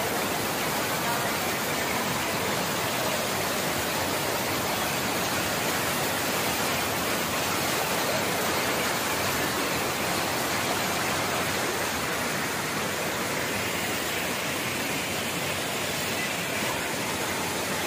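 Floodwater pouring over a pond's concrete spillway weir and churning white below it: a loud, steady rush of water.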